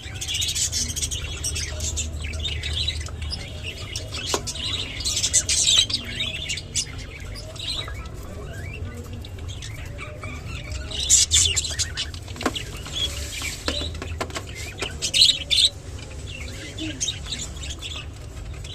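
Budgerigars chirping and chattering in bursts, loudest about five, eleven and fifteen seconds in, among short clicks.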